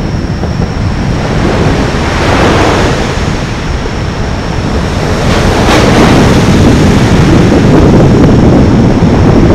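Wind buffeting the microphone over a dense rumble of traffic on the bridge, swelling as vehicles pass about two and a half and six seconds in. A steady high whine runs underneath.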